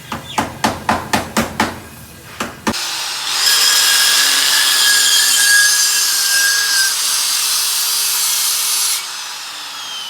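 A run of sharp metal knocks, about four a second, then an angle grinder cuts into the steel car silencer with a steady high-pitched grinding noise and whine. Near the end the cut stops and the disc winds down with a falling whine.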